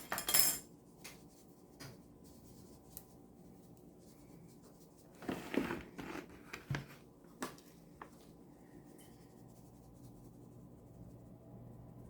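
Kitchen handling noises while chicken wings are being prepared: two short bursts of rustling and scraping, near the start and about five seconds in, then a few light clicks and knocks, over a faint steady hum.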